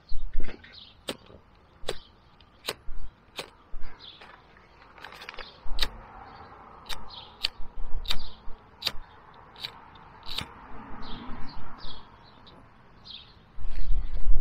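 Sharp clicks repeated about once every three-quarters of a second, with birds chirping between them. A low gusting rumble of wind on the microphone comes in near the end.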